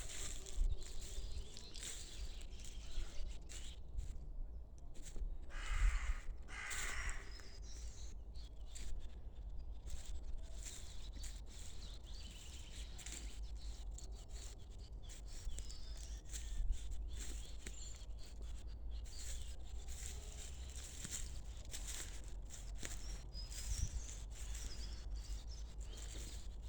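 Birds chirping and calling, with short high chirps throughout and a louder, harsher call about six seconds in, over a steady low rumble.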